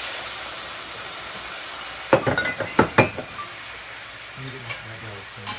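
Fruit and liquor sizzling in a hot pan for a flambéed dessert, a steady hiss. A few sharp metal clinks of a utensil against the pan come about two to three seconds in.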